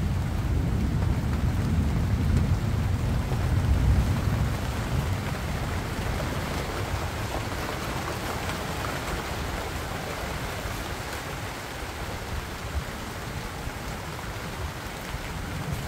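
Steady rain falling on the leaves of banana plants and maize, a constant hiss. A deep low rumble is heavy in the first few seconds and fades out about six seconds in.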